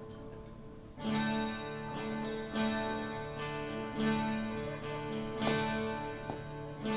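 Instrumental passage of Cypriot folk music led by a plucked laouto with the band: soft for the first second, then the strings come in fuller about a second in and keep playing.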